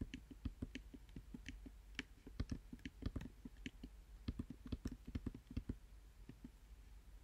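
Computer keyboard keystrokes and mouse clicks, irregular, several a second, as letters are typed cell by cell into a spreadsheet.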